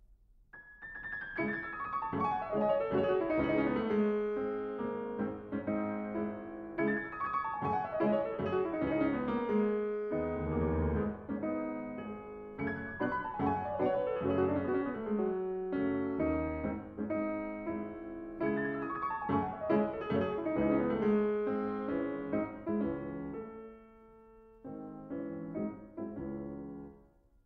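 Piano music: a phrase of falling notes repeated about every six seconds, dropping away briefly near the end and then stopping.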